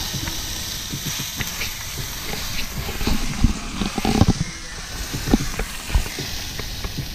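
Meat sizzling in a frying pan on a portable gas stove, with a run of knocks and bumps from about three seconds in as the pan and camera are handled.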